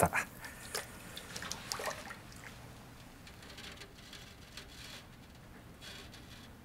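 Faint sloshing and dripping of liquid glaze as a hand stirs it in a metal bucket, with a few light clicks in the first two seconds.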